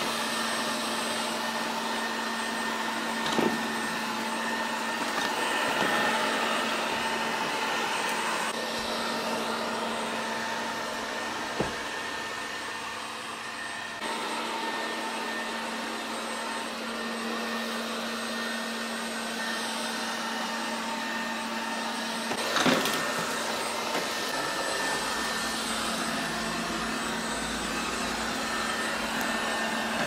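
Neatsvor X520 robot vacuum cleaner running: a steady motor hum with a high whine. Three brief knocks stand out along the way.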